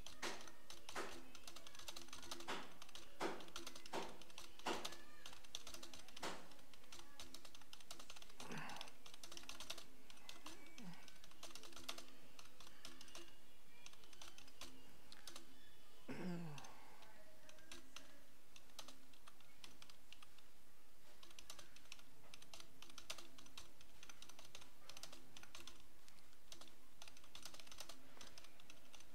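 Computer keyboard keys clicking as text is typed, in uneven runs of keystrokes over a faint steady hum.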